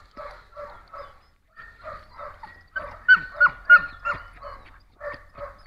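Belgian Malinois barking in quick succession, about three barks a second, loudest around the middle, where a few break into sharp falling yelps: the dog worked up (activated) in protection bite work.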